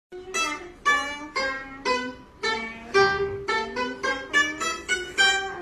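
Background music: a plucked string melody of single notes, about two to three a second, each note starting sharply and fading.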